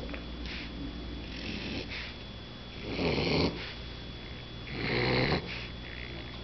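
A mini bulldog puppy snoring, with two loud snores, one about three seconds in and another about five seconds in, and softer breaths between them.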